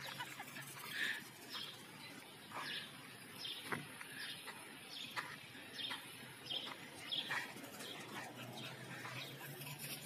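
Small birds chirping in short, irregular calls, with a single sharp click about four seconds in.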